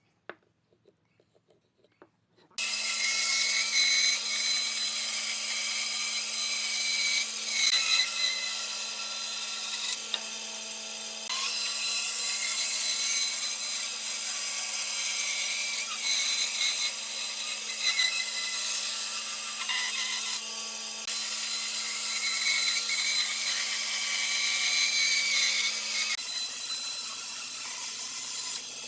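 Near silence, then about two and a half seconds in an electric power tool starts cutting or working wood and runs steadily, with a slight change in its pitch near the end.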